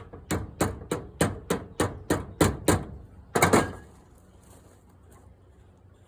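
Hammer tapping on a drill press chuck's sleeve to seat it over the jaws: about ten light, evenly spaced metallic taps, about three a second, then a couple of harder blows about three and a half seconds in.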